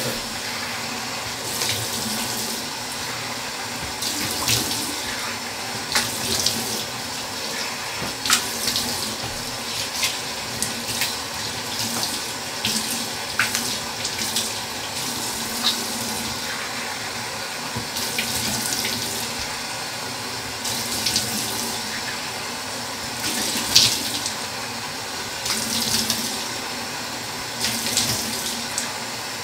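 Water running from a bathroom tap into a sink, with irregular splashes every second or two as things are rinsed under it.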